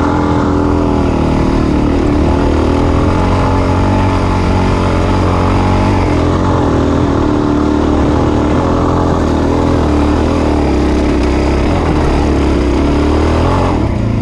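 Dirt bike engine pulling under load on a hill climb, its pitch wavering with the throttle. Near the end the engine note drops away.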